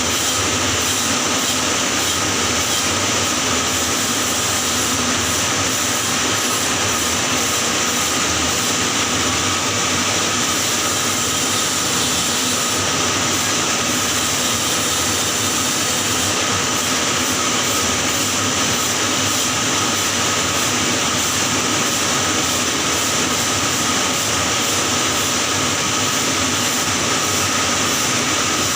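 Electric welding arc burning steadily: a continuous, even hiss that never breaks or changes.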